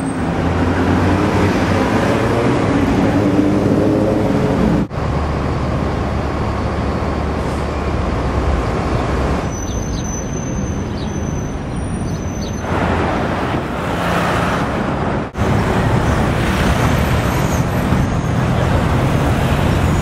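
Busy city avenue traffic: cars, buses and trucks running and passing in a steady rumble, with a brief high squeal about ten seconds in.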